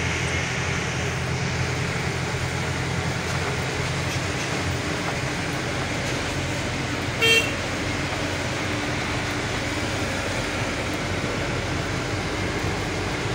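Truck's diesel engine running steadily, heard from inside the cab, with a vehicle horn tooting once briefly about seven seconds in.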